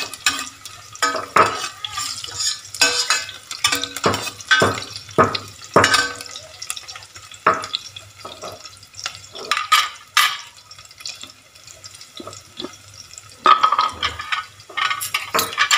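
A metal ladle scraping and clinking against a stainless steel pot, stirring sliced shallots that fry in oil with a light sizzle. The strokes are irregular, thin out for a couple of seconds past the middle, and pick up again near the end.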